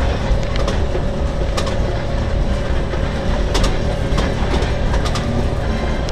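Amusement-park passenger train rolling along the track, heard from a rider's car: a steady low rumble with a faint steady hum and scattered clicks and knocks from the wheels over the rails.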